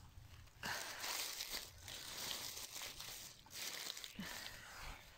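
Dry fallen leaves rustling and crackling as hands dig through the leaf litter to uncover and pull up a mushroom. It starts about a second in and comes in two spells of handling.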